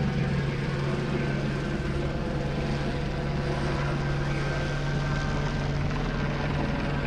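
Steady drone of a helicopter hovering overhead, a constant low hum under an even wash of noise.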